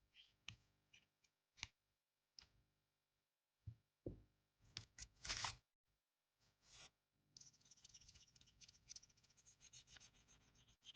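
Faint close-up handling sounds of cosmetics being worked on. A few separate light taps and clicks, a louder cluster of scrapes about four to five seconds in, then from about seven seconds a quick run of light scratching strokes, several a second.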